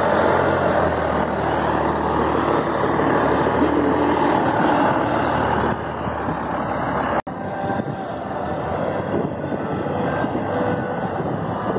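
Scania 420 truck's diesel engine, fitted with an exhaust diffuser, rumbling as the truck pulls away; the deep rumble is loudest for the first six seconds or so, then eases off as the truck moves off.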